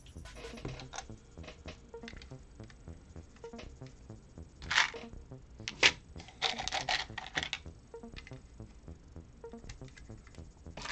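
Plastic building bricks clicking and rattling as they are handled and fitted together, with two louder sharp clicks about five and six seconds in and a quick clatter of pieces just after.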